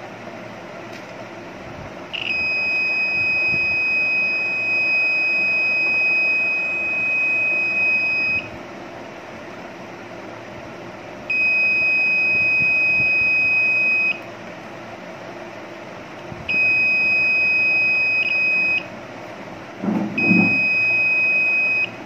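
Handheld RF 'radiation testing' meter's buzzer sounding a steady, high single-tone beep in four long stretches of about six, three, two and two seconds. It is triggered by the mobile phone beside it transmitting. About two seconds before the end there is a brief low knock of handling.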